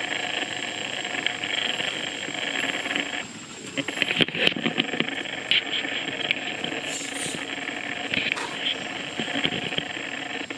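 Steady outdoor forest ambience: a continuous high hiss, with a few sharp clicks about four seconds in.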